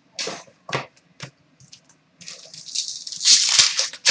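Trading cards being handled and flicked through by hand: a few quick papery swishes, then a louder, denser rustle of cards from about two seconds in.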